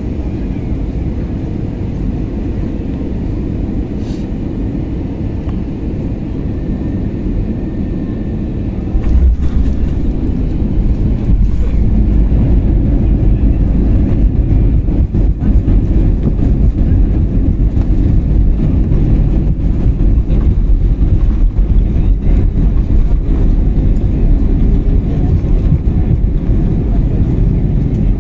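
Airliner cabin noise during a landing: a steady engine drone, then about nine seconds in the plane touches down and a much louder, deeper rumble takes over as it rolls down the runway.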